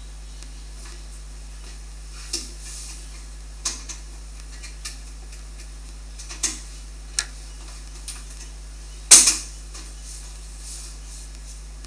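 Fan and clip-on cover being fitted back onto a Dimension Elite 3D printer: scattered clicks and knocks of parts being handled and snapped into place, the loudest a sharp knock about nine seconds in, over a steady low hum.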